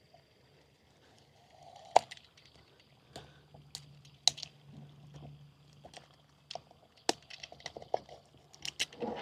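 Scattered light clicks and knocks as a stingless-bee hive box is worked open by hand, with care taken not to break it, and a faint low hum underneath from about three seconds in.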